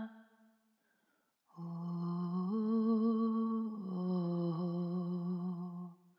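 A voice humming a few long, low held notes with slight vibrato, moving up and then down in pitch, after about a second of near silence.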